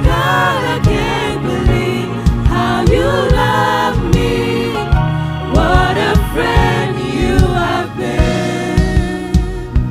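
Live gospel worship music: singers with gliding, held sung lines over band accompaniment with a steady low bass and regular drum hits.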